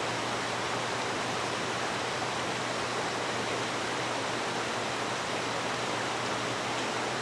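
Mountain valley stream, its water rushing in a steady, even wash.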